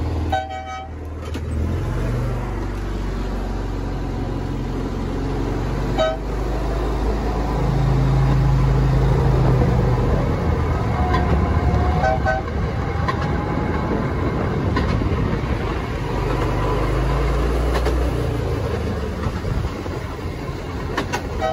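Diesel locomotive engine rumbling, with several short horn toots.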